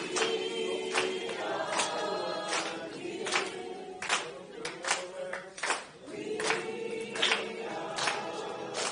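A group of voices singing together without instruments, holding long notes, with sharp claps keeping a steady beat a little more than once a second.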